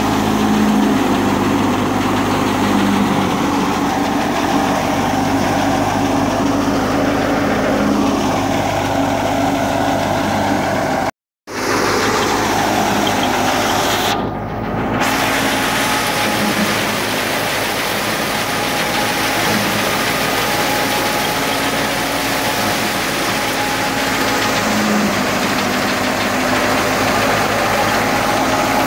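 Tractor-driven wheat thresher running: a steady, loud mechanical din of the tractor engine and the belt-driven threshing machinery, breaking off for a split second about eleven seconds in.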